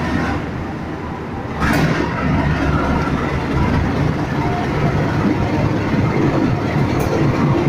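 CC 201 diesel-electric locomotive passing close by with its engine running in a heavy low rumble and its wheels clicking over rail joints. The sound gets louder and closer about a second and a half in, and a couple of sharp wheel clicks come near the end.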